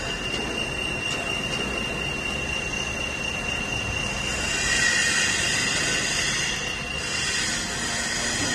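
CA-0716 CNC wood lathe turning a wooden blank, with a steady high squeal from the cutting tool on the wood over the noise of the machine. The squeal stops about seven seconds in.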